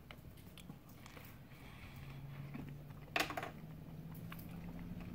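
Quiet eating sounds: small clicks of a plastic spoon and soft chewing of a bite of pie, with a brief sharp sound about three seconds in and a low steady hum through the second half.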